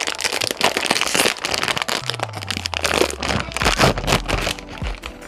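Plastic bag of mackerel-flavoured potato chips crinkling and crackling as it is handled and opened.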